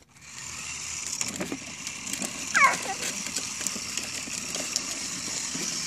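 Toy vehicles running on a concrete sidewalk: the steady high whine of a remote-control toy monster truck's small motor over the rattle of plastic toy wheels on concrete. A brief falling squeak comes about halfway through.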